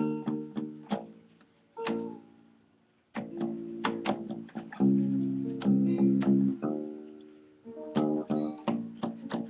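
Acoustic guitar and acoustic bass guitar playing samba, plucked chords over a low bass line. The playing breaks off briefly twice in the first three seconds, then carries on.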